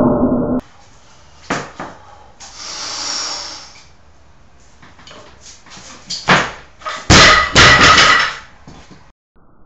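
Olympic barbell with bumper plates being handled on the lifting platform: scattered knocks and metallic clanks, the loudest cluster near the end with a brief ringing, and a soft hiss around three seconds in.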